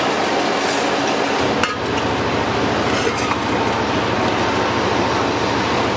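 Factory machinery running steadily with a fast, even mechanical pulsing, and a couple of sharp clinks about two and three seconds in.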